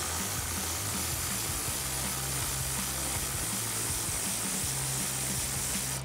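Cordless drill spinning a 10 mm socket to back out a recessed bolt, a steady whirring hiss, over background music.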